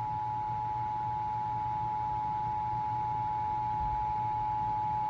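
Emergency Alert System two-tone attention signal: two steady high tones sounded together as one unbroken alarm tone. It signals that an emergency alert is about to be read, here a flash flood warning.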